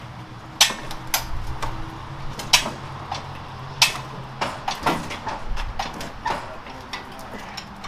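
Irregular sharp knocks and clanks, about a dozen, the loudest about half a second, two and a half and nearly four seconds in, over a low steady hum, while an electric forklift is worked up to a heavy machine.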